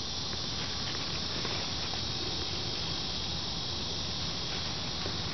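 Steady outdoor background hiss, high-pitched and even, with a faint low rumble beneath; no distinct sound stands out.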